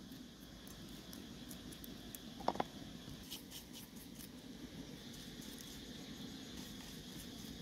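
Quiet hand-preparation sounds: a single short knock about two and a half seconds in, then faint light ticks of salt sprinkled into a wooden mortar.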